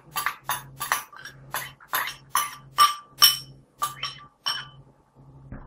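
A metal spoon clinking and scraping against a ceramic bowl as chopped spring onion is scraped out of it. The clinks come about three a second and stop near the end.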